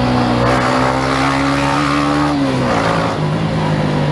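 Single-cylinder 150 cc Yamaha motorcycle engine running under throttle with wind rushing past, its revs climbing slowly, then dropping about two and a half seconds in and holding steady at a lower pitch.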